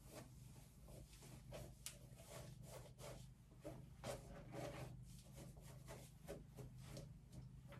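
Faint, repeated quick strokes of a small hairbrush back-brushing (teasing) hair to build volume, over a low steady hum.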